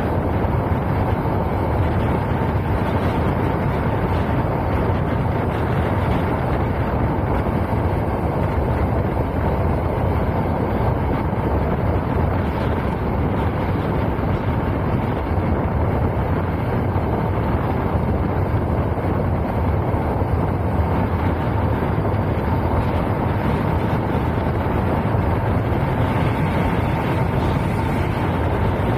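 Cruiser motorcycle running at a steady highway speed, its engine under a steady rush of wind on the microphone.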